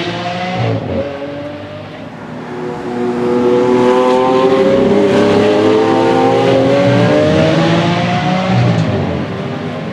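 Lamborghini Aventador's 6.5-litre V12 accelerating on track. The engine note drops about a second in, then climbs steadily in pitch for several seconds at full loudness, and falls away again near the end.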